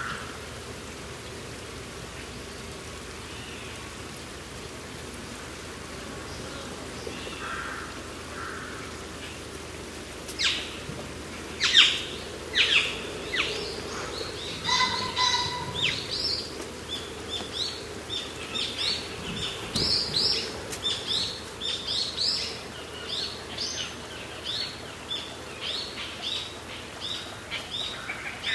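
Small birds calling with short, high chirps: a few scattered calls at first, then a quick, dense run of chirps from a little past the middle. A steady low rush runs underneath, with a single knock about two-thirds of the way in.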